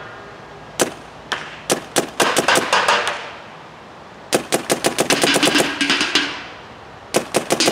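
Dye M3+ electronic paintball marker firing: a few single sharp shots about half a second apart, then rapid strings of about eight shots a second, with a ringing that lingers after each string.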